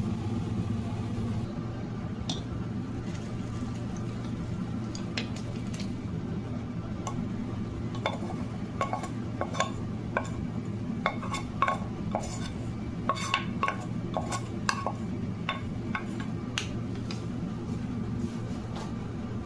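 Utensils clinking against dishes: short, ringing clinks, a few at first and then many in quick succession through the middle, over a steady low hum.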